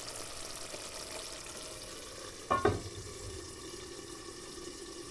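Food deep frying in hot oil, a steady sizzle with fine crackling. About two and a half seconds in come two quick ringing knocks, close together.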